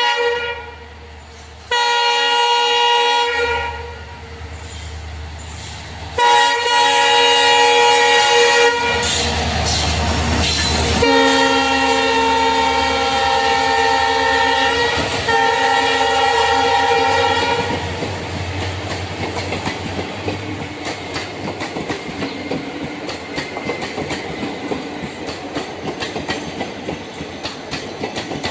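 Indian Railways express train passing through a station. The locomotive's horn sounds three blasts, the last and longest about six seconds. The coaches then roll by with a rapid clickety-clack of wheels over the rail joints.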